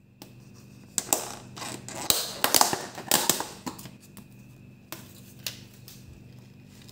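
A quick run of sharp clicks and clattering knocks of hard objects being handled for about three seconds, then two single knocks, over a steady low hum.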